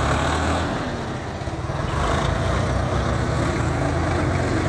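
Diesel engines of several farm tractors, a Swaraj and Deutz-Fahrs among them, running hard together while pulling a loaded trolley through soft ploughed soil. A steady, loud low throb that dips briefly about a second in, then comes back up.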